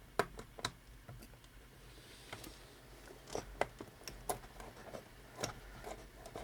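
Irregular sharp clicks and taps of small 3D-printed plastic parts being handled and fitted together, a bearing and servo mount being worked into place by hand.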